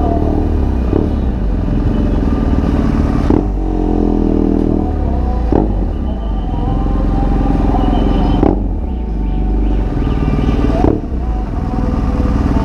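BMW R1200GS Adventure's boxer twin running at low speed through an SC Project GP aftermarket exhaust, a steady rumble, with a few brief knocks along the way.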